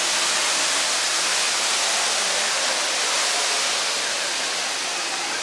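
Steady hiss of rushing water, such as a waterfall or water feature, with no clear rhythm or strikes.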